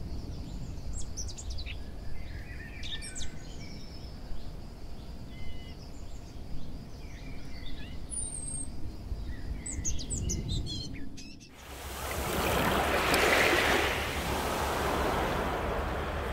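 Small birds chirping and calling in short, quick notes over a low steady rumble. About two-thirds of the way through it cuts to the rushing of small waves washing over a pebble shore, which swells and then eases.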